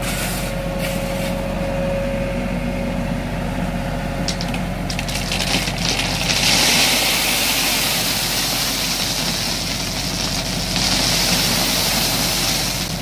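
A small tracked dumper's engine runs steadily as its raised hopper tips. From about six seconds in, a load of crushed stone pours out and slides down a ground-protection mat with a loud rushing rattle that eases near the end.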